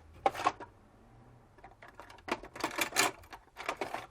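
Small clicks, taps and rustles of hands handling an iPhone and its charging parts, a brief cluster just after the start and a denser run of clicks from about two seconds in to near the end.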